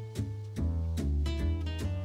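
Background music: plucked acoustic guitar over a bass line, with notes struck at an even pace.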